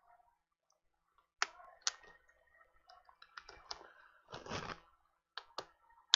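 Small plastic clicks and taps from a tablet and tools being handled on a workbench, with a brief scraping rustle about four and a half seconds in.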